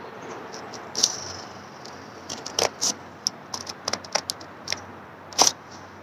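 Scissors snipping through folded copy paper, a string of short, irregular snips with paper rustling as a slit is cut along the fold.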